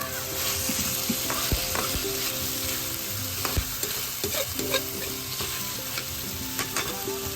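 Food sizzling and frying in hot oil in a pan as it is stirred, with scattered light clicks of the utensil against the pan.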